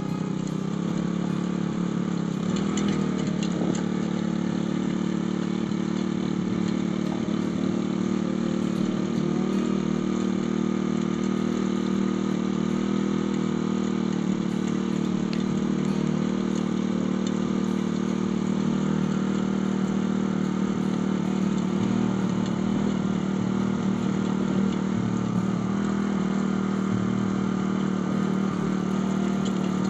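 Small petrol mini tiller (walk-behind cultivator) engine running steadily with a constant hum while its rotating tines dig through the soil of a dirt path.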